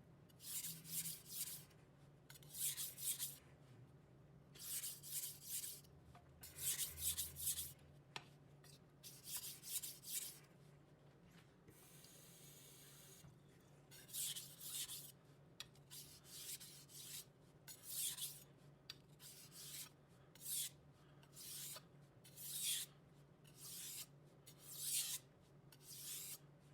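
Kitchen knife blade scraping back and forth on a wet 1000-grit whetstone, in repeated short strokes grouped in runs of three or so with brief pauses, and a longer pause about halfway through.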